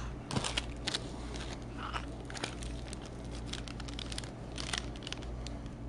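A foil-and-plastic food wrapper crinkling as it is handled: a scatter of short crackles and rustles over a low steady hum.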